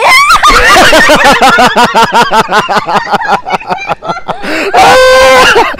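A man laughing loudly right into the microphone: a fast run of ha-ha bursts, about six a second, ending in one long held cry near the end.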